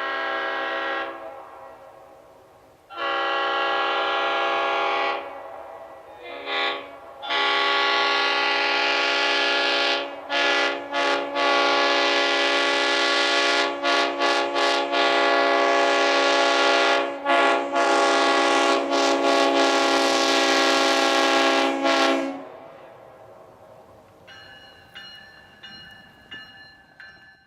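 Nathan Airchime RS5TFX five-chime air horn (1971) sounding its chord in several blasts: a few short blasts, then a long blast of about twelve seconds broken by quick stutters.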